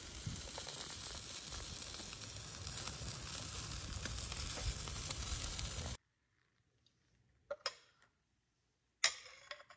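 Whole red snapper sizzling on a charcoal grill grate: a steady hiss with fine crackles that cuts off suddenly about six seconds in. Then two short scrapes of a metal spoon against a ceramic sauce bowl, the second a little longer.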